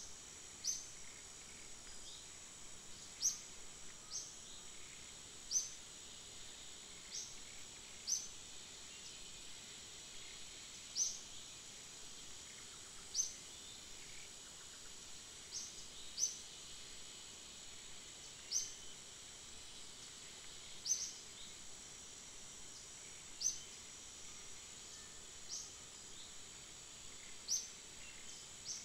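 Forest ambience: a steady high-pitched insect drone, with short high chirps that rise in pitch, repeating about every one to two seconds.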